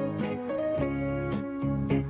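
Background music: plucked guitar notes played over a steady low bass.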